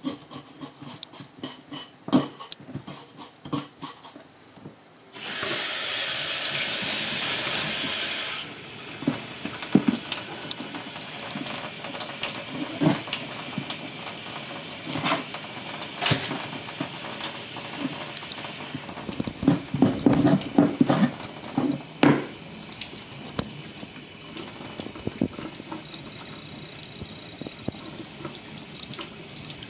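A kitchen knife scraping rapidly along a horse mackerel's side, then about three seconds of loud steady tap water. Then knocks and cuts of the knife on a wooden cutting board as the head comes off, and toward the end a gentler stream of tap water as the fish's belly cavity is rinsed.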